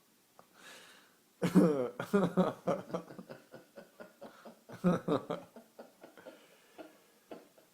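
Laughter breaking out suddenly about a second and a half in, with a second loud burst near five seconds and short chuckles between.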